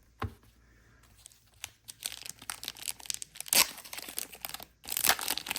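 Plastic card packaging and sleeves crinkling and rustling as trading cards are handled and unwrapped. It starts about a second and a half in, with a louder burst of crinkling near the end.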